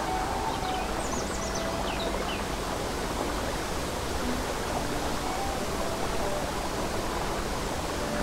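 Babbling brook running steadily, with a bird giving a short run of high, falling chirps about a second in. Faint soft music notes are held underneath.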